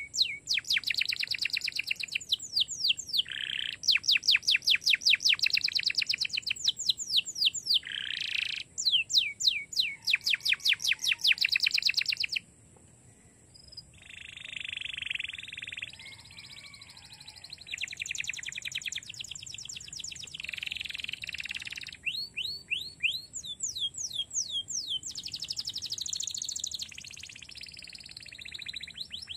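Domestic canary singing long trills: fast runs of quickly repeated sweeping notes, loud for the first dozen seconds, then a brief pause and softer phrases.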